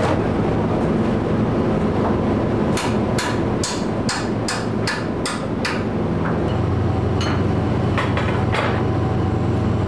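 Sharp metal-on-metal strikes as steel trawl gear (shackles, hooks, wire rope) is worked on deck: a quick run of about three to four a second for a few seconds, then a few single strikes. Under them runs the steady low hum of the trawler's engine.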